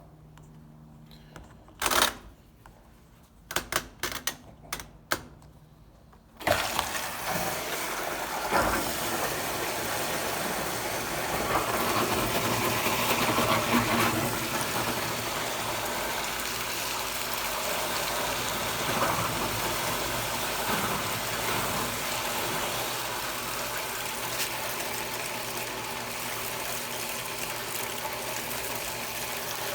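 A few sharp clicks, then about six seconds in water starts rushing steadily into the tub of a Consul Cargo 8 kg washing machine as it fills.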